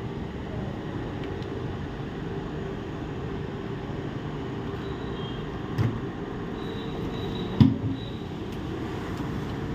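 Steady room hum, like an air conditioner or fan, with two short knocks about six and seven and a half seconds in, the louder one second.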